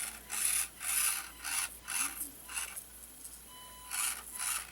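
Axial SCX24 micro crawler's small motor and geared drivetrain giving short rasping bursts of throttle, about six quick ones, a pause, then two more near the end.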